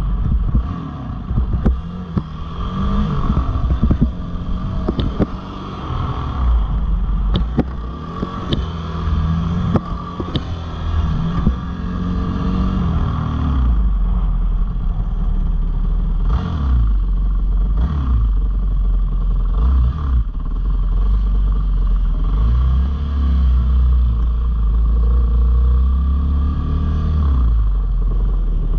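Dirt bike's single-cylinder engine running under way, its revs rising and falling in the first half, with a few sharp clicks. About halfway through it drops to a lower, steadier note as the bike slows.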